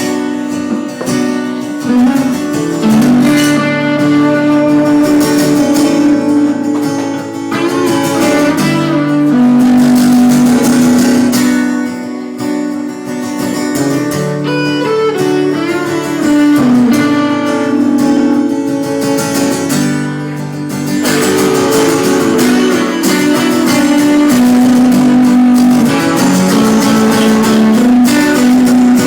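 Live guitar-led music: strummed and picked guitar playing the instrumental opening of a song, before any singing comes in.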